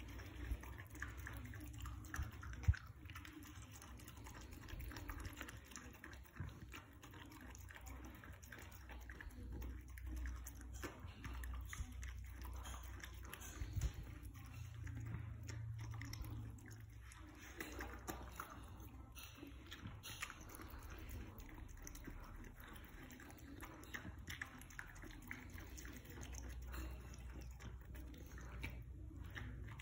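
A dog eating moist rice-like food from a bowl: faint chewing with many small scattered clicks, and one sharper click about three seconds in.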